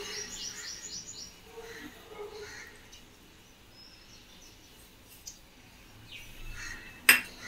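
A bird chirping a quick run of about six short high notes at the start, over faint quiet kitchen sounds. A single sharp knock comes near the end.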